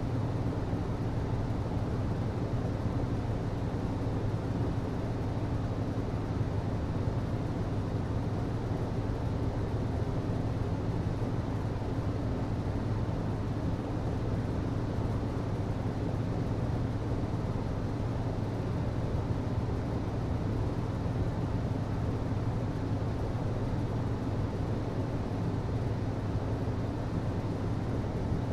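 HVAC system running steadily: a constant low hum over an even rushing noise, with no changes.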